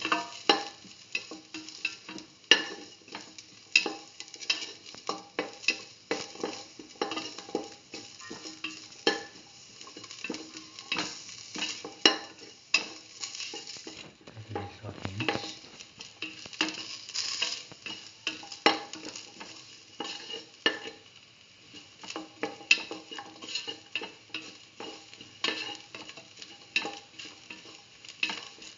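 Sliced onions and shallots sautéing in oil in a metal pan, with a light sizzle. A spatula scrapes and taps against the pan over and over as they are stirred.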